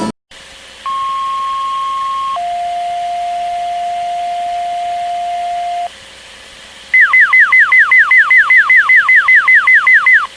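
Synthetic electronic tones: a steady high beep for about a second and a half, then a lower steady tone held for about three and a half seconds. About seven seconds in, a rapid run of falling chirps begins, about five a second, like an alarm or ringtone.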